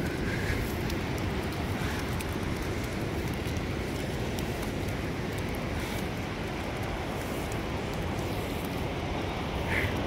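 Wind buffeting the phone's microphone: a steady, gusty low rumble, with a short high-pitched sound near the end.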